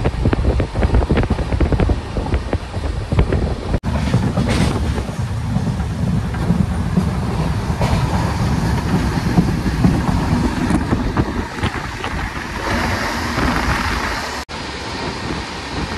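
Passenger train running at speed, heard from inside the coach at an open window: the wheels clatter over the rails under a steady rush of wind. The sound breaks off abruptly twice, about 4 and 14 seconds in.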